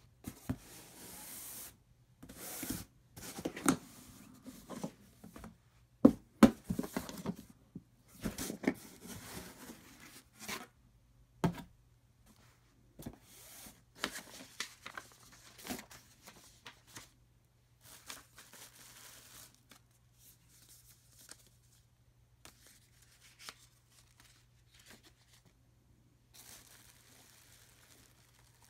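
Cardboard hat box being opened and unpacked by hand: sharp knocks and scrapes of the box and lid, the loudest about six seconds in, then softer rustling of paper and crinkling of the plastic wrap around the hat.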